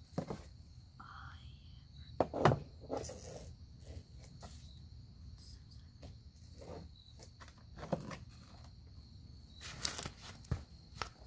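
A broom swept along a slatted porch ceiling to clear cobwebs: scattered knocks and scrapes of the bristles and wooden handle against the slats, the loudest knock about two seconds in and a cluster near the end. A faint steady high tone runs underneath.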